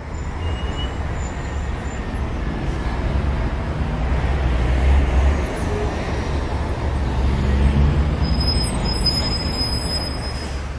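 Steady low rumble of road traffic, with a few thin high chirps about eight seconds in.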